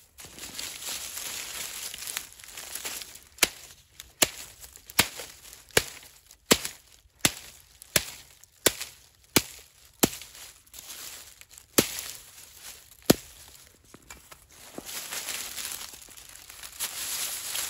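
A knife chopping through a bundle of dried reed stalks laid on a log: about a dozen sharp chops, roughly three every two seconds, with dry rustling of the reeds being handled before and after.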